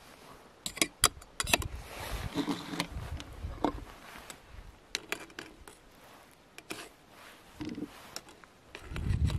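Metal clinks and knocks as the lid comes off an Esbit aluminium cook pot, with a cluster of sharp clicks about a second in. A spoon then scrapes and taps inside the pot while scooping out tortellini, with a low rumble near the end.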